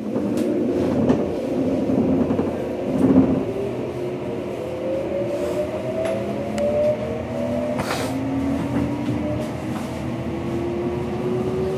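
Tokyo Metro new 05 series train's Mitsubishi VVVF inverter and traction motors whining as the train accelerates away from a station, several tones climbing steadily in pitch, over the rumble of wheels on rail inside the car. A few short knocks and clacks come through, the clearest about eight seconds in.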